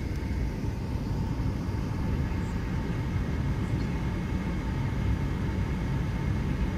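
Cabin noise of an Airbus A380 taxiing: a steady low rumble from the engines and rolling gear, with a faint steady whine above it.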